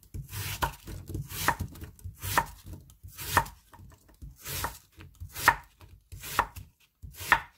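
Kitchen knife slicing Korean radish thin on a wooden cutting board: eight crisp cuts about a second apart, each ending in a knock of the blade on the board.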